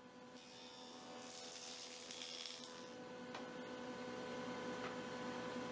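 Ridgid 6-1/8 in. jointer's 6-amp motor and cutter head running, a steady hum and whir that grows a little louder over the first second or two, then holds.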